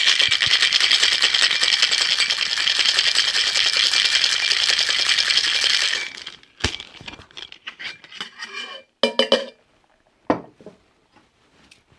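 Ice rattling fast and hard inside a stainless steel Boston shaker as a cocktail is shaken, stopping abruptly about six seconds in. A few sharp metal knocks and clinks follow as the shaker tins are handled on the bar.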